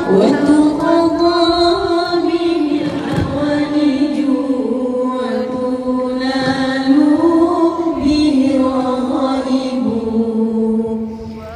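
A woman singing a selawat chant into a microphone, holding long notes that slide slowly up and down with a slight waver.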